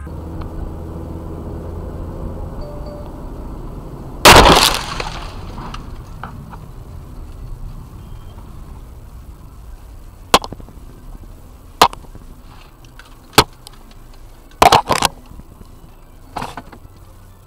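An iron pipe smashes into a car's windshield about four seconds in: one very loud crash with breaking glass, heard from inside the car over a low steady road rumble. Several short, sharp knocks follow in the second half.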